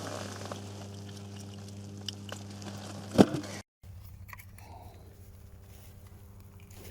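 A steady low electrical-sounding hum, with scattered small clicks and crunches of handling and one sharp loud click about three seconds in. The sound drops out for a moment just after the click.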